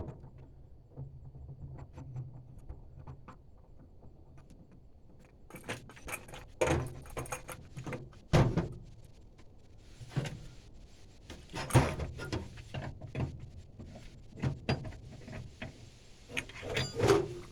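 Scattered metallic clinks, clicks and knocks of hand tools and propane fittings being handled during a regulator replacement, with a few louder knocks along the way.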